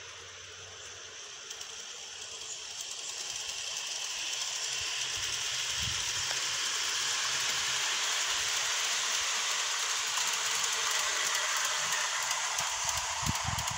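Garden-railway model steam locomotive and its train of passenger cars running past on the track: a steady rushing hiss that grows louder as the train approaches, with a few low thumps near the end.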